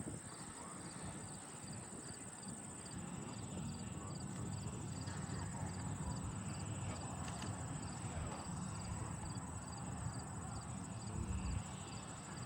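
Crickets chirping in a steady pulse, about three chirps a second, over a faint low rumble that grows a few seconds in.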